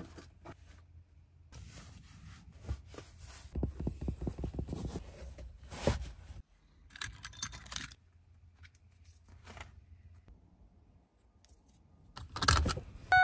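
Scattered rustling, scraping and light knocks of someone getting dressed and moving about in a camper van, with a boot knocking on the wooden floor about halfway through. Near the end comes a louder scrape as metal curtain rings slide along a rod.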